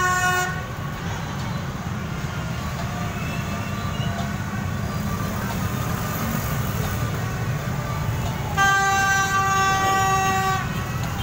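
Steady rumble of many motorbikes riding past in a street procession. A horn blast ends about half a second in, and a second, steady single-note horn blast lasts about two seconds near the end.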